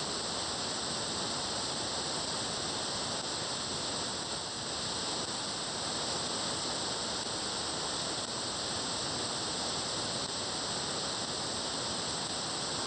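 Steady static hiss from an SDRPlay RSP1 software-defined radio receiver tuned to about 436.7 MHz: plain band noise with no satellite signal or data bursts to be heard.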